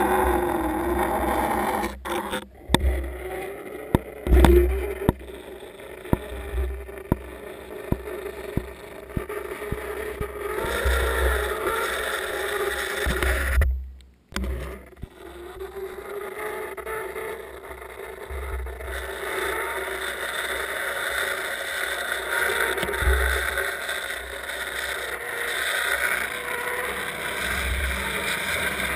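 Muffled underwater sound picked up through a camera's waterproof housing as it hangs on a line in lake water: low rumbling surges every second or two, scattered sharp knocks, and a faint wavering drone, briefly cutting out about halfway through.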